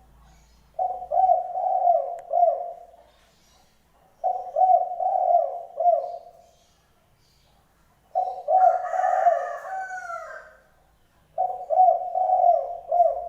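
A dove cooing: four phrases of low, repeated coo notes, each about two seconds long, with pauses between. A higher, thinner bird call overlaps the third phrase.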